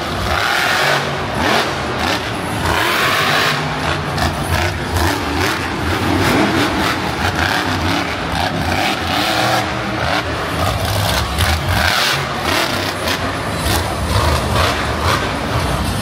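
Monster truck engine revving up and down, loud and continuous.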